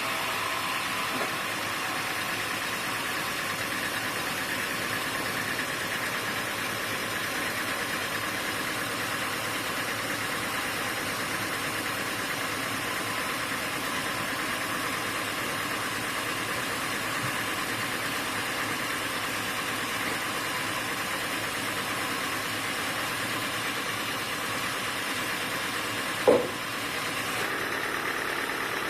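Sawmill machinery running steadily, a constant mechanical drone. About 26 seconds in comes a single short, loud, sudden sound, well above the drone.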